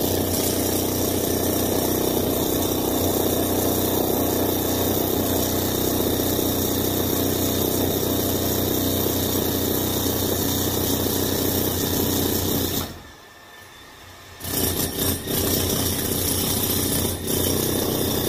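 Jackhammer breaking up a concrete floor, hammering continuously. It stops for about a second and a half near the end, then starts again in a few short bursts before running steadily.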